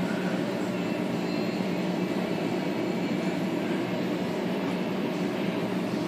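Steady background rumble with no distinct clicks or knocks standing out.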